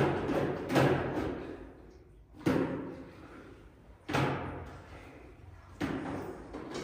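A series of sudden thumps, five in all at uneven intervals, each dying away over a second or so.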